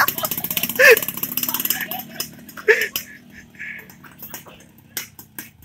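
Yamaha RX-King 135cc two-stroke motorcycle riding away and fading into the distance, its exhaust crackling. A person gives two short shouts, about a second in and again near the three-second mark.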